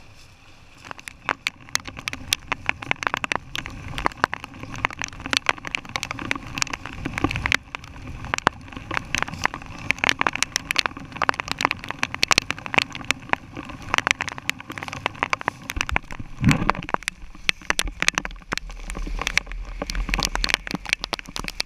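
Heavy rain squall pelting down, with drops striking close to the camera in a dense, irregular patter of sharp hits that begins about a second in. A low rumble of wind on the microphone joins in the last few seconds.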